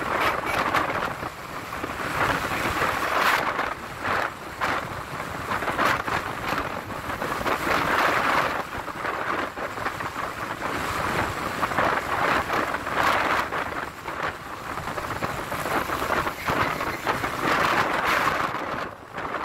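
Wind buffeting the microphone of a moving vehicle over road and traffic noise: a rushing noise that swells and fades every second or two.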